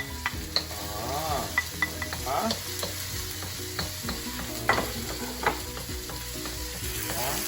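Garlic, onion and ginger sizzling in oil in a hot electric pot, with a utensil stirring them and clicking and scraping against the pot now and then.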